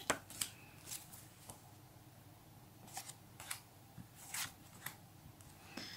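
Panini stickers being leafed through by hand, one sticker at a time slid off the stack and tucked behind the others. It gives about ten short, papery flicks and rubs at an uneven pace.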